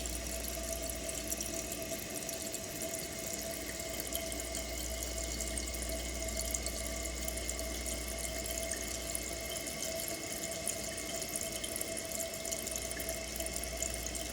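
Toilet tank refilling through its fill valve after a flush: a steady hiss of water running in, with a faint steady tone. The new valve has its water level turned down so that it shuts off just below the top of the tank.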